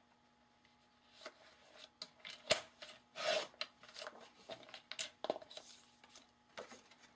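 Patterned paper being slid into place and cut on a sliding paper trimmer: paper rustling and scraping, a sharp click about two and a half seconds in, and the cutting head run along its rail with a short swish just after.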